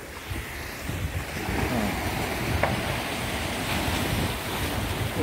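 Choppy sea water washing and slapping against the shore rocks, with wind buffeting the microphone as a low rumble.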